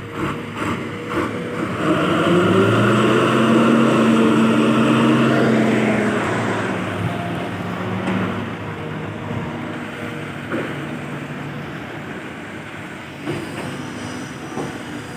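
Diesel engine of a Kobelco SK210-8 Super XM long-reach excavator working while digging soil, its note swelling to a loud peak a couple of seconds in and then settling back to a lower running level.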